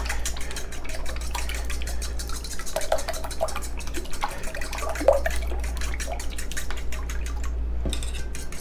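Eggs and milk being beaten by hand in a stainless steel bowl: a utensil clicking rapidly against the metal with the liquid sloshing, over a steady low hum.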